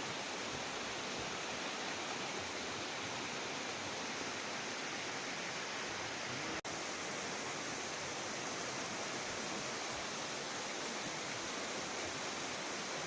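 Large waterfall pouring, a steady rushing noise of falling water and spray, with one instant's dropout about six and a half seconds in.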